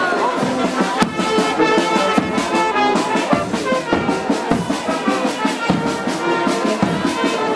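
Brass band music: horns playing a melody, with some sharp percussive hits.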